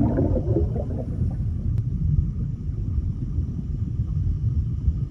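Deep, steady underwater rumble sound effect for an animated logo plunging into water, with bubbling in the first second.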